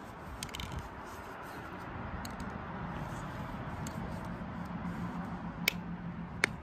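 Stiff plastic cap of a spray paint can being pried and twisted by hand, hard to get off, giving a few sharp plastic clicks over steady background noise.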